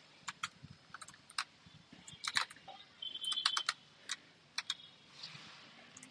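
Laptop keyboard keys clicking irregularly, singly and in quick clusters, as they are pressed down while the keyboard is wiped and brushed clean.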